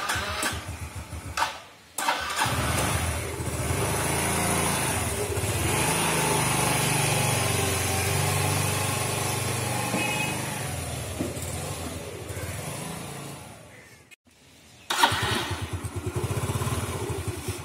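Motor scooter engine started and running, then pulling away and fading. After a break, the scooter's engine idles with a rapid, even putter.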